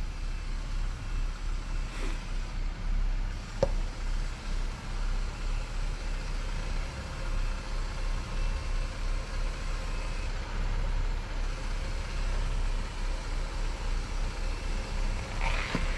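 Jeep Wrangler Rubicon's engine running at low speed on an off-road trail, a steady low rumble that swells and dips unevenly, with a single sharp knock about three and a half seconds in.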